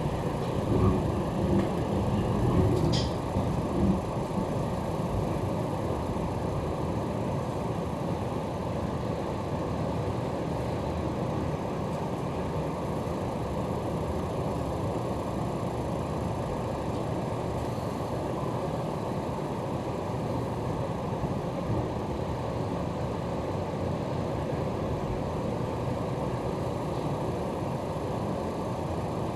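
Inside a passenger car of an electric commuter train running along the line at reduced speed: a steady low rumble of wheels on rails and running gear.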